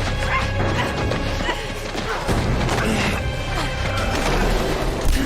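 Tense drama score with a pulsing low end and held tones, mixed with crashes and thuds from a foot chase and scuffle. A sharp hit comes near the end.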